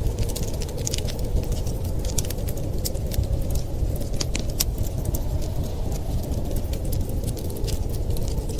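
Wood fire in a fireplace crackling, with many irregular sharp pops and snaps over a steady low rumble.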